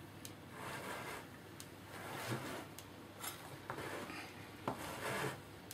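Spatula folding flour into whipped egg-and-sugar batter in a glass bowl: soft swishing strokes about once a second, with a few light clicks between them.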